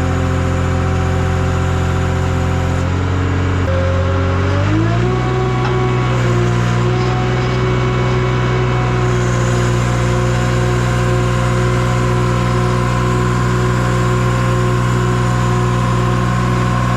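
Skid steer engine running steadily, then speeding up about four seconds in and holding at the higher engine speed.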